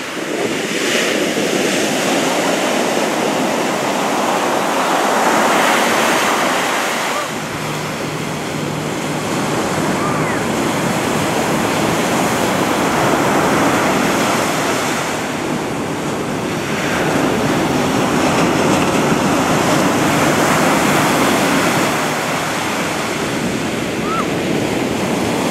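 Ocean surf: waves breaking and washing in, the noise swelling and easing every several seconds.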